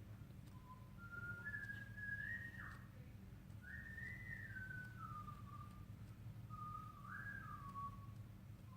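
A person whistling a slow tune: single clear notes that hold, step and slide up and down, with a faint steady hum underneath.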